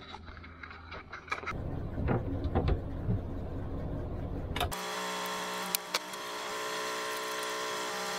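Rustling and handling noise, then from a sudden change about two-thirds through, a steady mechanical drone with many even tones, broken by a few sharp clicks.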